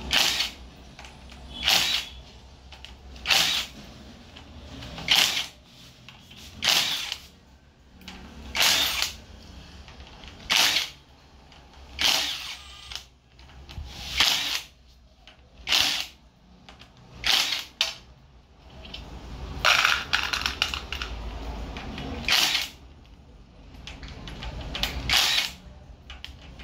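Power tool spinning off the bus-bar nuts of a hybrid battery pack one after another: about fourteen short bursts, roughly one every one and a half to two seconds, with one longer run about twenty seconds in.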